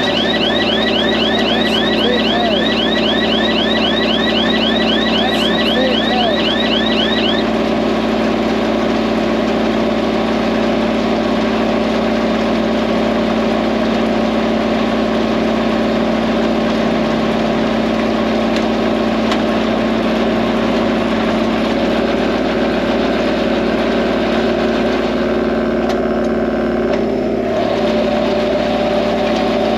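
Compact diesel tractor engine running steadily. For about the first seven seconds a rapid, evenly repeating electronic chirp sounds over it, about four to five a second, then stops.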